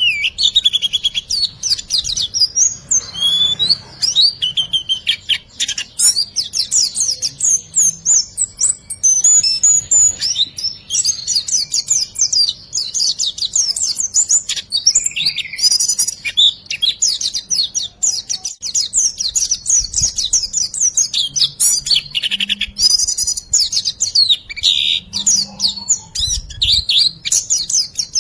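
A songbird singing without pause in a fast, dense run of high chirps, trills and twitters, a 'riwikan' tutor song with varied phrases.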